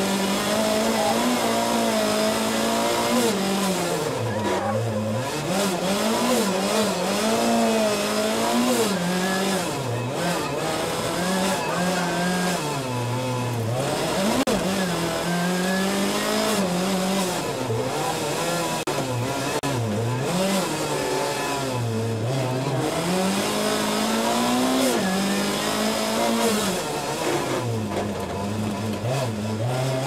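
Rally car engine heard from inside the cockpit at full throttle, rising in pitch through each gear and dropping at each shift or lift, again and again.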